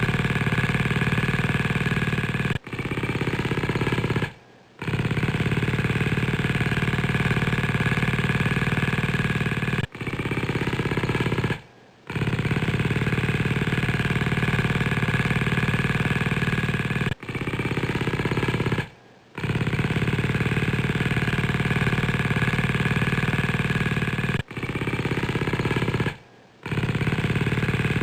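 Motorcycle engine running through its exhaust, a dense, steady sound with a slight rise in pitch after each restart. The same stretch repeats as a loop about every seven seconds, each pass broken by a brief drop-out.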